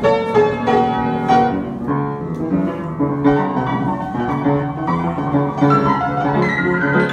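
Old upright piano played at a brisk pace, with a steady stream of chords and melody notes. The piano has a few dead keys: it plays 84 out of 88.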